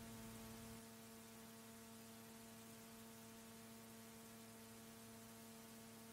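Faint steady electrical hum with a stack of evenly spaced overtones, left on the radio recording with no music or speech.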